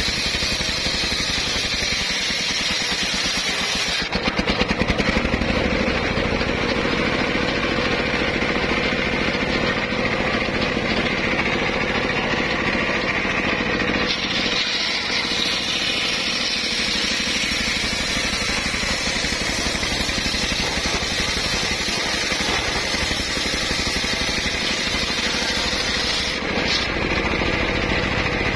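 A homemade circular saw runs steadily while it cuts timber. Its tone changes about four seconds in, with a brief louder stretch, and shifts again near the end.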